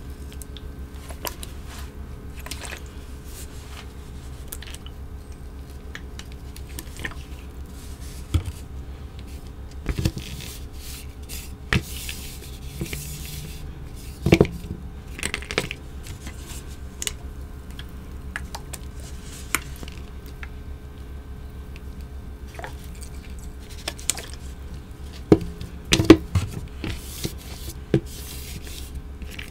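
A wet, red-dyed block of gym chalk being broken apart, squished and pressed by a gloved hand on a plastic cutting board. It gives scattered soft squishes, cracks and taps, with the loudest knocks about halfway through and again near the end, over a steady low hum.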